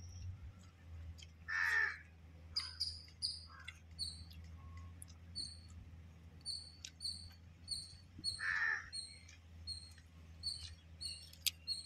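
Crow cawing twice, about a second and a half in and again past the eight-second mark, over a small bird repeating short high chirps about twice a second.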